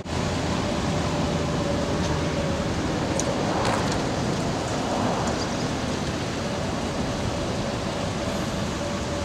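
2006 Chevrolet C4500 bucket truck running while its ETI aerial boom lowers and swings, heard at a distance as a steady noisy rush with a faint steady hum and a few light clicks.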